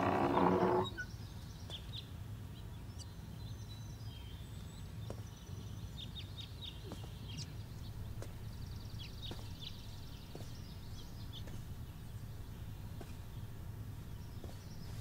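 Background music stops about a second in, leaving a steady low hum with faint, scattered bird chirps.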